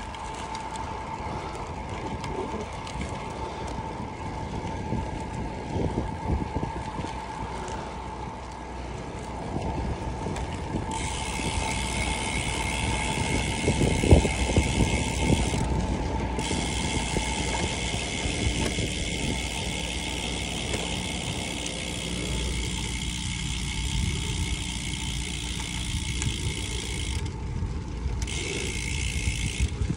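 Bicycle riding over concrete and dirt: steady tyre rolling noise with wind on the microphone and a sharp knock from a bump near the middle. From about a third of the way in, the rear hub's freewheel buzzes while coasting, cutting out briefly twice.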